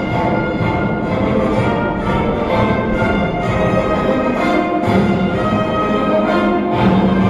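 Orchestral music with strings, played loud and steady.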